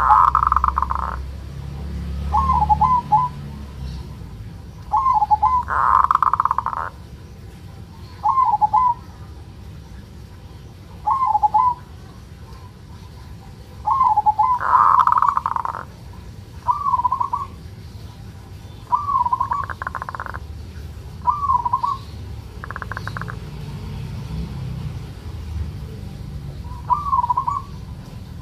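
Male zebra dove (perkutut) calling: short rising-and-falling coo notes every two to three seconds, mixed with about five buzzy, rattling 'kerot' bursts lasting up to a second. This 'ngerot' call is the sign of a bird in breeding drive.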